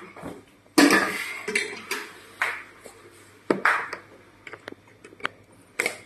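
Kitchen things being handled: a string of separate knocks, clinks and clatters of pots, lids and utensils, the loudest about a second in.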